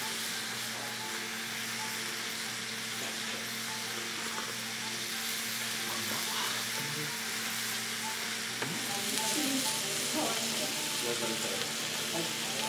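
Meat and vegetables sizzling steadily in a small tabletop hot pot over a burner flame, with a few light clicks in the second half.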